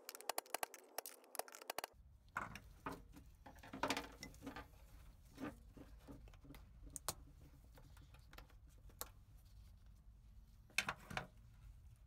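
Fast run of light metal taps, about seven a second, as a screwdriver is hammered against the fuel pump lock ring to turn it until it locks into place. Then scattered clicks and knocks as the wire harness connector is handled and plugged onto the new fuel pump.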